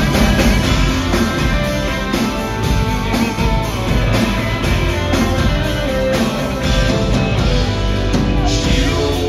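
Live band playing an instrumental passage: acoustic and electric guitars over a steady drum beat.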